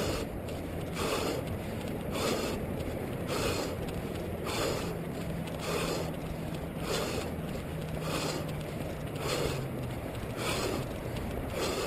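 A runner breathing hard and rhythmically, with an exhalation about once a second, close to a head-mounted camera. Under it is a steady rumbling noise of running.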